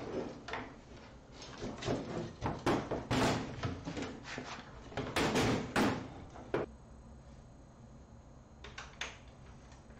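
Plywood component board sliding into a metal-framed machine bay, with scraping and a series of knocks for about seven seconds, then a couple of light clicks near the end.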